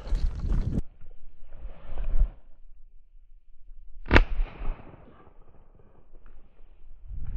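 A single over-under shotgun shot about four seconds in, fired at a thrush in flight, with a short echo after it. Before it, footsteps and rustling on the leaf-covered ground.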